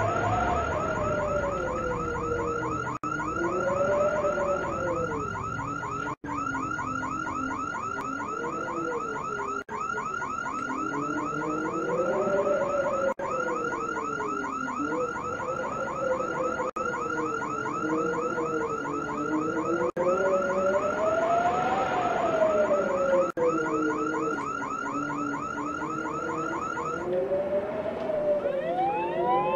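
Electronic siren sounds: a fast, evenly repeating yelping chirp over a slower, wavering wail. The chirping breaks off briefly about every three and a half seconds and stops shortly before the end, where a rising wail begins.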